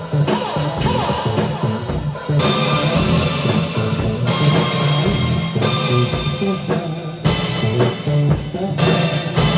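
Rock band improvising: guitar chords changing every second or so over a drum kit keeping a steady beat.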